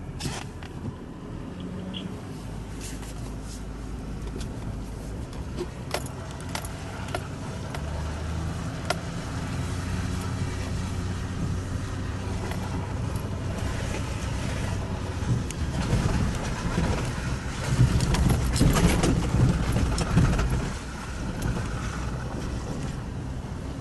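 A vehicle moving: a steady low rumble with scattered clicks and rattles, which gets louder for a few seconds in the second half.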